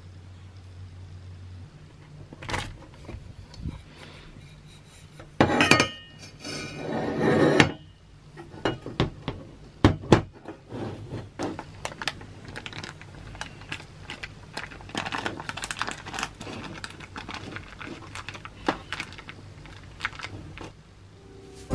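Cutlery and dishes clinking and knocking, with scattered taps throughout and a louder clattering stretch about five to seven seconds in.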